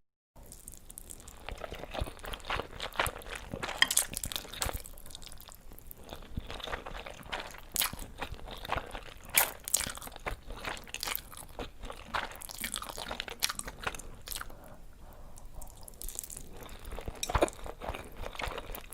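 Crunchy food being bitten and chewed: a run of irregular, sharp crunches and crackles.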